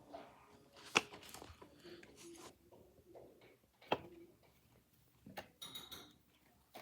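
Tiny plastic Nanoblock bricks being handled and pressed together: scattered small clicks and rustling, with two sharper clicks about a second in and near four seconds.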